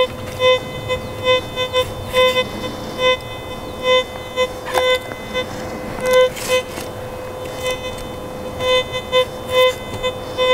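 Teknetics T2+ metal detector in all-metals mode sounding its target tone: a steady faint hum broken by repeated beeps, about two a second, as the coil sweeps over a deeply buried coin. The response is weak but readable.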